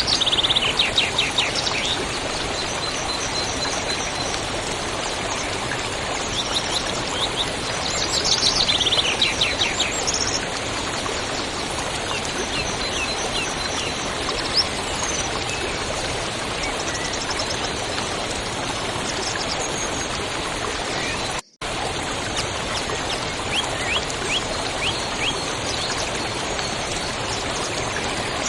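Waterfall rushing steadily, with birds chirping over it: fast chirping trills in the first couple of seconds and again about eight seconds in, and short scattered chirps later. The sound cuts out for a split second about 21 seconds in.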